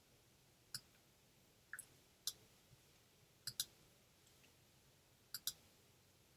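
Faint clicks of a computer mouse, about seven in all, irregularly spaced, including two quick double-clicks in the second half.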